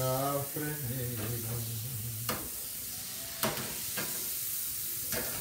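Chicken, sausage and white wine sizzling steadily in a frying pan as the wine cooks off. A man hums for the first two seconds, and a few short clicks follow.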